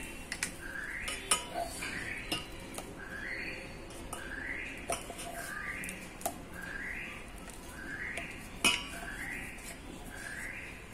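A metal spoon clinking and scraping against steel vessels as thick, water-free urad dal batter is scooped out of a mixer jar into a steel bowl, in irregular knocks, the loudest near the end. Behind it, a short rising chirp repeats steadily about once a second.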